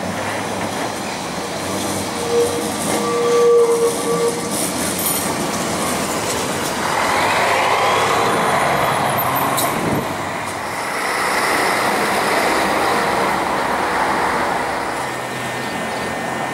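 Carris Remodelado two-axle electric tram running along street rails, wheels clattering over the track, loudest as it passes about seven seconds in. A thin, high wheel squeal follows in the second half as the tram takes the curve.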